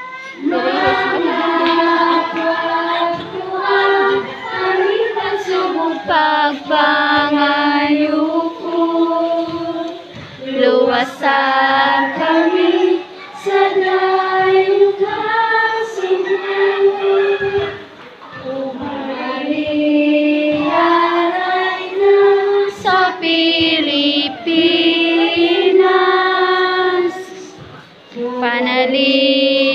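A group of children singing a hymn together, in sustained phrases with short breaks between them.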